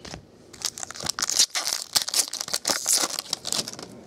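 Foil wrapper of a baseball card pack crinkling and tearing as the pack is opened, mixed with quick clicks of the cards being handled. It starts about half a second in and lasts about three seconds.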